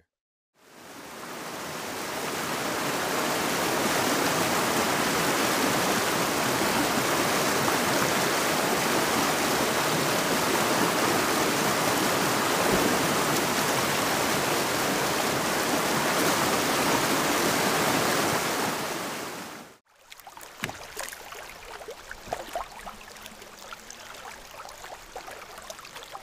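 Rushing whitewater of river rapids: a steady, loud roar of water that fades in over the first couple of seconds and cuts off suddenly about 20 seconds in. After it comes quieter flowing river water with light splashes and knocks of canoe paddle strokes.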